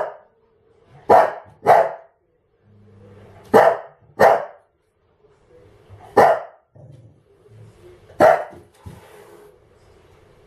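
A dog barking in sharp single barks and quick pairs, about seven barks in all.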